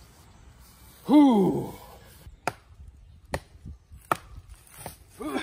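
A man's short vocal sound, falling in pitch, about a second in. Then three sharp knocks, a little under a second apart, as logs and branches are handled on a brush shelter.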